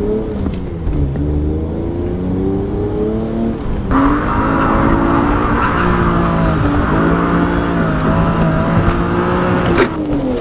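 BMW engine heard from inside the cabin, revving hard and accelerating through the gears, its pitch climbing and dropping with each shift. From about four seconds in, a harsh tyre squeal rides over it as the car drifts, and there is a short sharp knock near the end.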